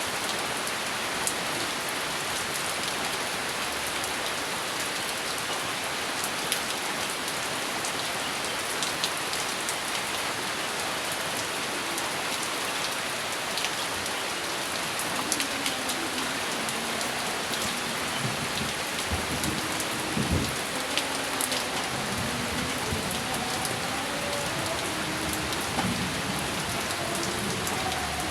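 Steady rain falling on a surface, with scattered sharp ticks of individual drops. About halfway through, a low rolling rumble of distant thunder joins in.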